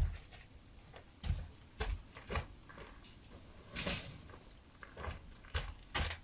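Irregular knocks, thuds and clatters of demolition work, as rotten roof timbers are pried off and dropped. The loudest knock comes right at the start, and there are about ten strikes in all.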